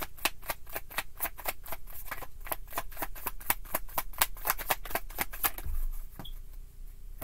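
A deck of tarot cards being shuffled overhand in the hands: a quick, even run of crisp card clicks, about five a second, that stops shortly before the end, followed by a soft low thump.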